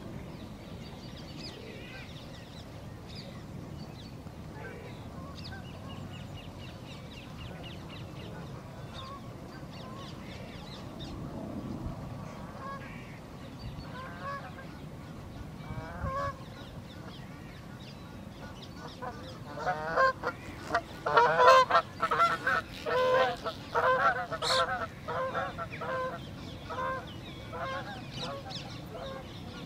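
Geese honking in a quick run of repeated calls about two-thirds of the way in, over a steady low rumble of wind on the microphone.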